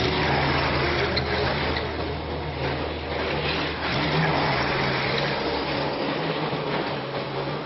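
Forklift engine running steadily, with a low hum and mechanical noise as the truck is driven.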